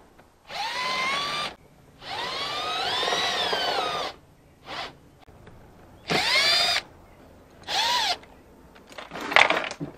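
Cordless drill-driver backing stainless steel screws out of an aluminium boat console frame. The motor runs in about six short bursts, each whining up in pitch as it spins up. The longest run is about two seconds.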